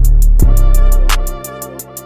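Background music with a steady drum beat, hi-hat ticks and bass, which drops out briefly near the end.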